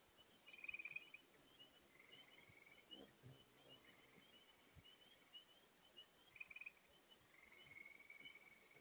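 Faint chirps from hummingbirds crowding the feeders, short high notes about three a second, broken by brief buzzy trills every couple of seconds. Underneath is the faint steady rush of a large spring far below.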